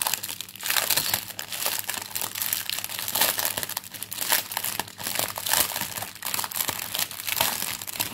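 Plastic packaging crinkling irregularly as it is handled and picked at to find the end of the wrapping.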